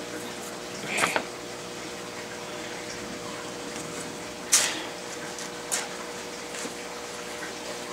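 A cardboard shipping box being handled, with a rustling knock about a second in, a sharp knock midway and a lighter one soon after. Underneath is the steady hum of aquarium equipment, with a faint steady tone.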